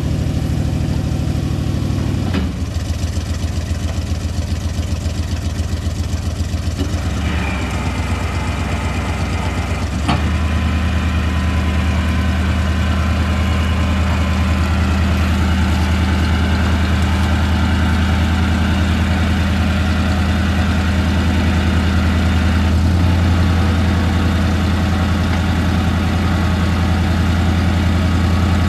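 1987 GMC C7D042's gas V8 running steadily while its PTO-driven hydraulic pump raises the dump bed. The engine note steps up and gets a little louder about ten seconds in.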